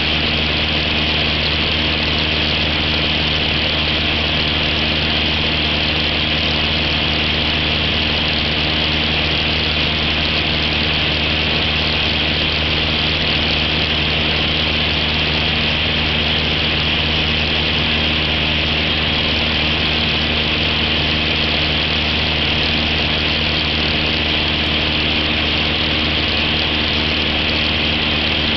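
Cessna 172's piston engine and propeller running steadily in level flight: a constant drone with a steady hiss over it.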